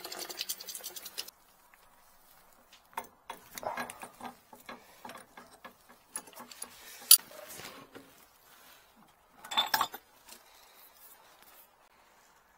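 Metal hand tools clinking and clattering on metal pipe fittings as pliers and a wrench work the fittings of an electric water heater. There are scattered clicks, one sharp click about seven seconds in, and a louder clatter near ten seconds.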